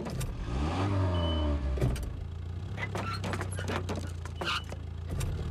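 Car engine running with a steady low hum while reversing with a boat trailer in tow, rising and falling in pitch about a second in, with several short knocks and clicks.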